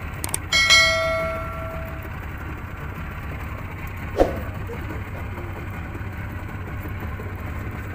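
Small boat's 30-horsepower outboard motor running steadily, with a single metallic clang near the start that rings on for about a second and a half, and a short sharp knock about four seconds in.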